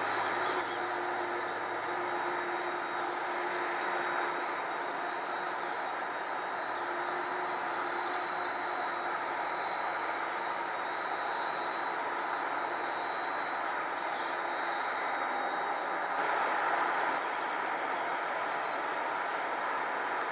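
Boeing 767-400ER's twin turbofan jet engines running at low power as the airliner taxis: a steady rushing noise with a faint high whine, holding level throughout.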